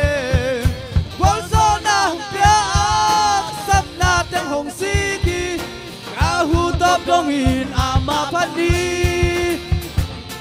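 A gospel group singing a song over accompaniment with a steady beat.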